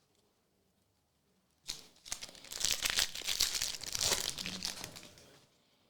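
A trading-card pack wrapper being torn open and crinkled. It starts with a sharp rip about two seconds in, then a few seconds of dense crackling before it dies away.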